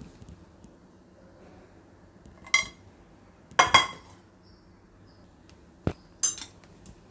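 Stainless steel kitchen utensils clinking: a sharp clink a couple of seconds in and a double clink about a second later, then near the end a sharp knock and a clink as a steel pot-gripper clamps onto a steel tumbler.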